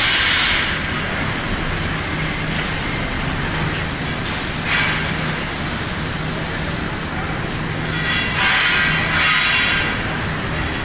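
Steady din of a welding fabrication shop floor: a low machinery hum under broad hiss, with louder stretches of hiss about five seconds in and again around eight to nine seconds in.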